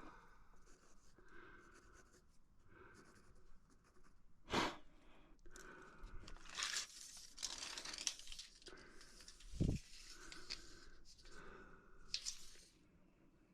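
Irregular scraping and rustling handling noises, with a sharp knock about four and a half seconds in and a dull thump near ten seconds.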